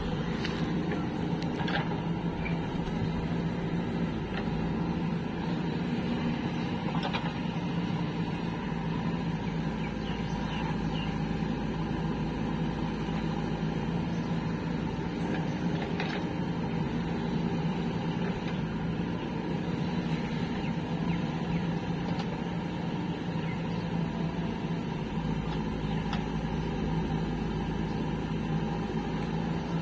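Diesel engine of a JCB 3DX backhoe loader running steadily as it loads soil into a tractor trolley, with a few faint knocks.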